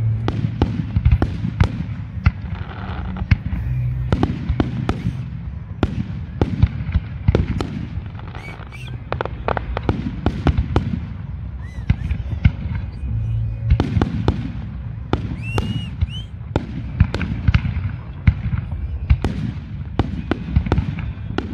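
Fireworks display: aerial shells bursting in a rapid, continuous string of sharp bangs and crackles, several a second, over a constant low rumble.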